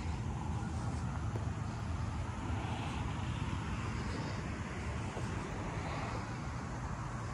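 Steady low outdoor rumble of wind on the microphone and road traffic, with a hiss that swells twice as vehicles pass.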